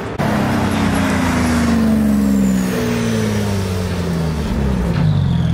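A car engine running loud, its pitch falling steadily for about four seconds, then holding a steady lower note near the end. A faint high whine falls with it.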